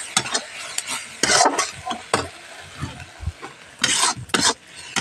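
A spatula stirring and scraping spice masala frying in oil in a metal kadhai, with a steady sizzle under irregular scrapes against the pan. The ground onion-and-spice paste is frying with freshly added turmeric and salt.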